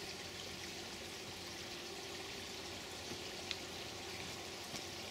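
Small woodland stream running steadily, with a few faint clicks and knocks.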